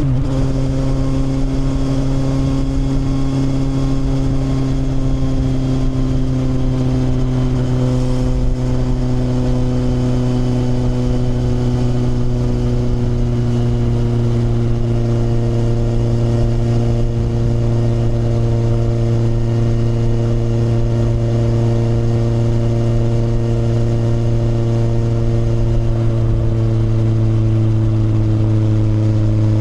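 Kawasaki motorcycle engine running steadily under way, its pitch sinking slowly as the bike gradually eases off. A steady rush of wind and road noise runs underneath.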